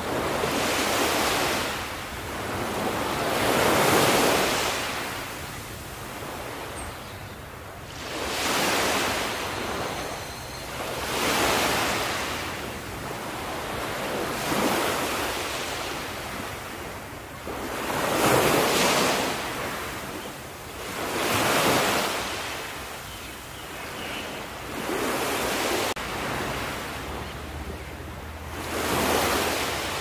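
Small ocean waves washing onto a beach, each one swelling into a soft hiss and fading, about every three to four seconds.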